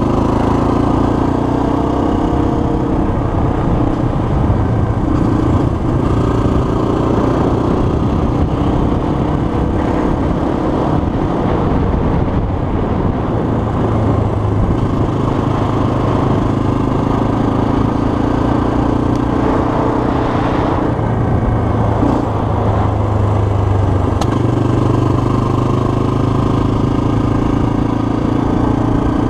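Yamaha TT-R230 dirt bike's single-cylinder four-stroke engine running close up from the rider's position as the bike is ridden along a paved road. The engine note rises and falls with the throttle, easing off about a third of the way in and again about two-thirds through before pulling strongly again.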